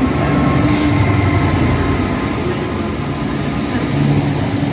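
Freightliner Class 66 diesel locomotive running through on a container train, its EMD two-stroke V12 engine working, followed by the container flat wagons rolling past on the rails. A short hiss comes about a second in.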